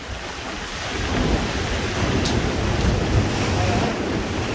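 Ocean surf breaking against the rocks and washing over the cobble shore, with wind rumbling on the microphone; it swells about a second in and stays loud for about three seconds.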